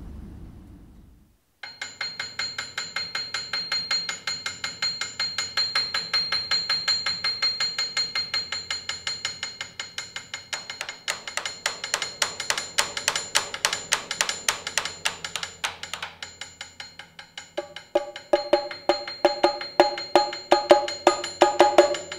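Live experimental percussion: a rapid, evenly spaced run of strikes with a steady metallic ringing, starting about a second and a half in. Near the end, louder and lower-pitched drum hits join in.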